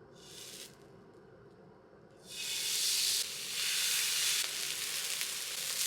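Food sizzling on a hot pan as it is put on to cook. There is a brief hiss at the start, then a loud, steady sizzle that starts suddenly about two seconds in.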